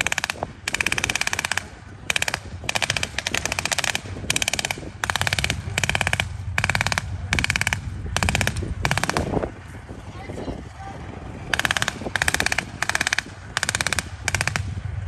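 Machine guns firing in bursts of rapid automatic fire, short and long, one after another, with a lull of about two seconds just before the last few bursts.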